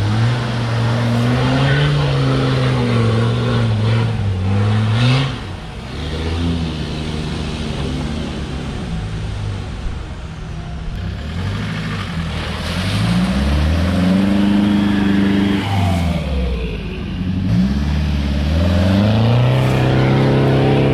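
Land Rover off-road engine revved hard over and over as it works through deep mud, the pitch climbing and falling back again and again. Near the end a Defender's diesel revs high under heavy load while its tyres spin in the mud.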